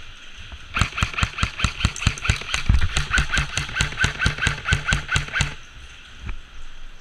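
Airsoft gun firing a long rapid string of shots, about six a second, for nearly five seconds. Each shot carries a short whine.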